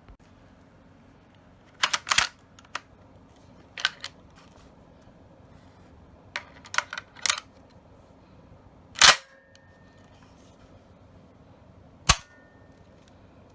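Beretta A400 semi-automatic shotgun parts being handled during reassembly: scattered metallic clicks and clacks, then two sharper, louder metal clacks about nine and twelve seconds in, each with a short metallic ring.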